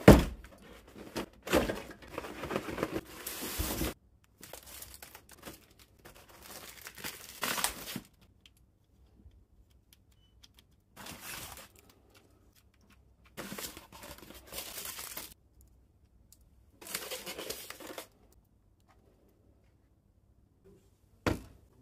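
Packaging of a boxed model being handled: cardboard and plastic rustling and crinkling in several separate bursts with quiet pauses between them. There is a single sharp knock near the end.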